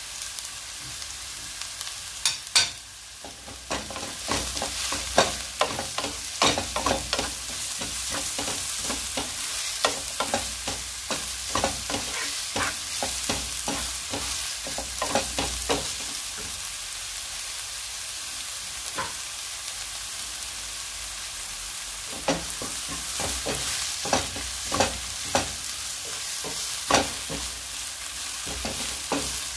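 Vegetable oil sizzling in a pot with thyme added, a steady hiss under frequent sharp knocks and scrapes of a spoon stirring against the pot.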